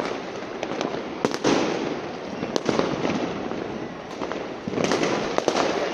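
Many fireworks and firecrackers going off at once: a continuous crackling hiss with sharp bangs at irregular intervals, several of them close together.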